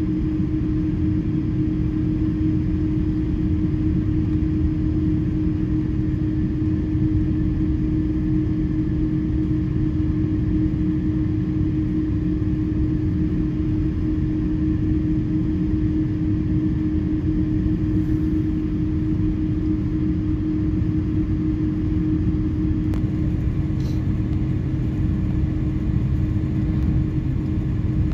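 Cabin noise of an Airbus A330-300 taxiing: the jet engines run at a steady low power under a deep rumble, with one constant droning tone and no spool-up.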